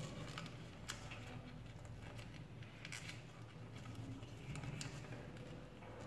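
Faint crinkling and rustling of a folded dollar bill as fingers pinch and crease it, with a few crisp little ticks about a second in, at three seconds and near five seconds, over a low steady hum.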